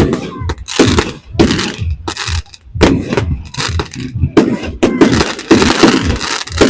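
Fireworks going off in quick succession: a rapid, irregular run of loud bangs and crackles, densest in the second half.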